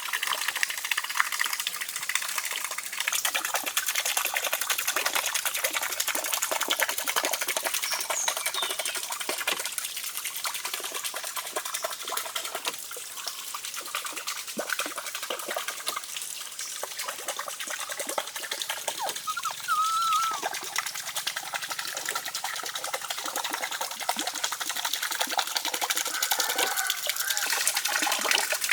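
Water splashing and trickling, with dense crackling and clicking from handling. About two-thirds of the way through comes one short, high, wavering squeak.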